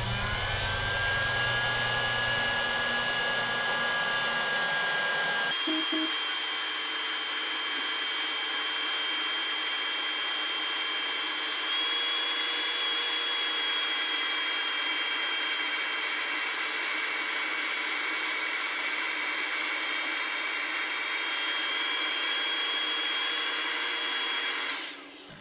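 Electric heat gun running steadily, a fan whoosh with a thin whine, blowing hot air to shrink heat-shrink tubing over a coax cable's ferrite beads. It spins up at the start, its whine steps up in pitch about five seconds in, and it cuts off near the end.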